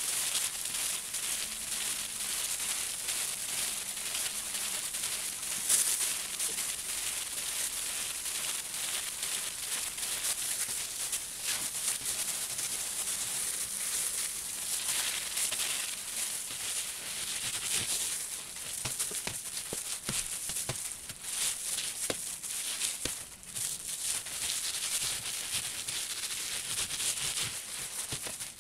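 Plastic-gloved hands rubbing a wet Karachay wool felt slipper blank against bubble wrap while fulling it: a continuous rustling and crinkling with small scattered clicks.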